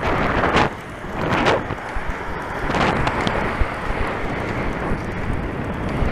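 Wind rushing over a moving action camera's microphone while rollerblading along an asphalt road, with several louder swells in the first three seconds, over the low rumble of skate wheels rolling on the pavement.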